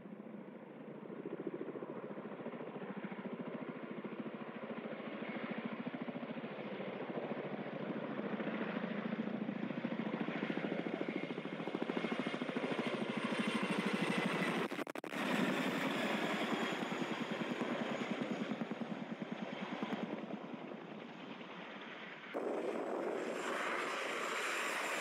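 Boeing CH-47 Chinook tandem-rotor helicopter flying low past, its rotors giving a fast, steady chop over turbine noise, with a brief dropout about fifteen seconds in. About three seconds before the end it switches abruptly to the even, brighter sound of a turboprop airplane on a low approach.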